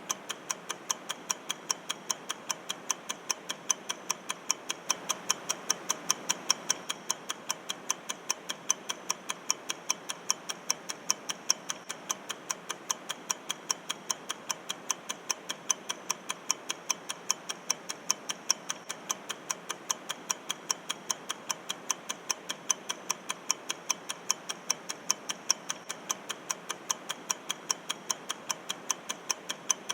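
Clock-ticking sound effect counting down a timed quiz round, with steady, even ticks throughout.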